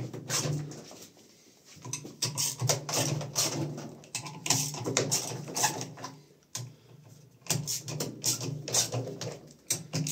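Clicks, knocks and rattles of hand tools and parts being handled while an LG front-loading washing machine is taken apart, over a low steady hum that drops out twice.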